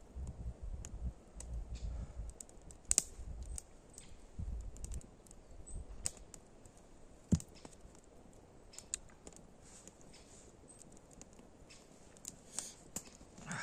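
Campfire crackling: scattered sharp pops and snaps of burning wood, with a louder pop about seven seconds in. A low rumble comes and goes through the first five seconds.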